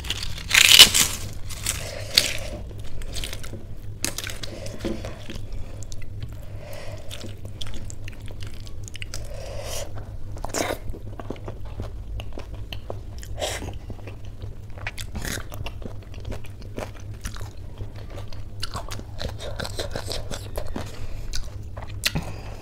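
A crisp papad cracking as it is broken by hand about a second in, then close-up chewing and crunching of mouthfuls of khichdi mixed with papad pieces, a steady run of short crunches.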